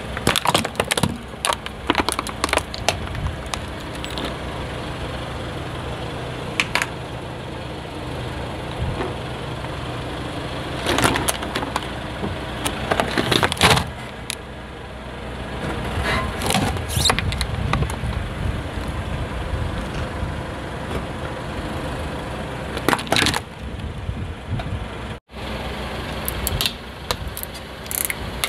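Plastic toys cracking and snapping as a car tyre rolls over and crushes them, in several clusters of sharp cracks, with the car's engine idling steadily underneath.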